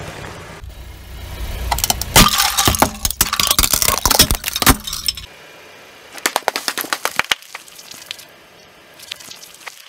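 Car tyre rolling over and crushing hard plastic bowls: a dense run of sharp cracks and snaps as the plastic shatters, loudest in the middle. It cuts off suddenly, followed by fainter scattered crackles.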